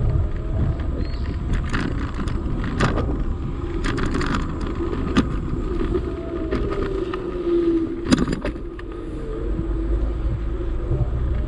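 A small vehicle engine running as it rolls slowly along, its hum rising and falling with speed, over a low rumble, with scattered sharp clicks and rattles.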